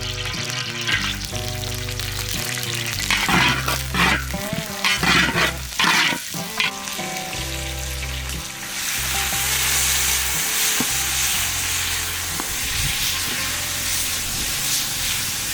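Beef ribs frying in a hot pan, with a utensil scraping and stirring in the first half, then a loud steady sizzle from about halfway through. Background music underneath.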